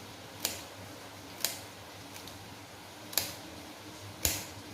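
Knife cutting fresh ginger root: four sharp cuts about one to two seconds apart.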